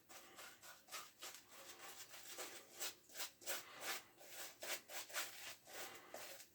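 Shaving brush working Williams shave soap into a lather. Soft, bristly rubbing strokes, a few a second.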